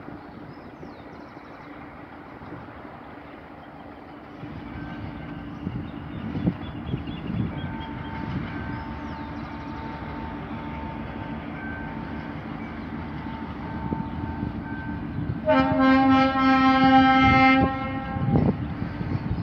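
Diesel locomotive GA8 5557 hauling a ballast work train, approaching with its engine running as a low steady drone that grows louder from about four seconds in. Near the end it sounds its horn in one long blast of about two seconds, the loudest sound.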